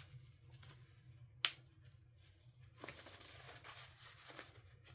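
Parts and packaging of a soldering microscope kit being handled: two sharp clicks, the louder about a second and a half in, then light rustling and crinkling.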